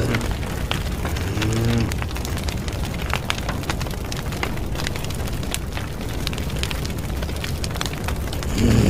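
Steady, low rumbling wind noise on the phone's microphone, with scattered small clicks and a short pitched sound about a second and a half in.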